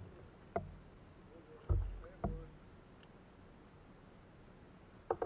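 Hollow knocks and thumps on a plastic kayak: three single knocks spread over the first couple of seconds, each with a brief ring, then a quick cluster of knocks near the end.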